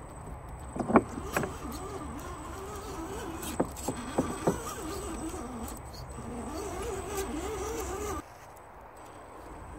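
Axial SCX10 RC crawler's electric motor and drivetrain whining, the pitch wavering up and down with the throttle as it crawls over rocks, with a few sharp knocks of tyres and chassis against stone, the loudest about a second in. The sound drops sharply after about eight seconds.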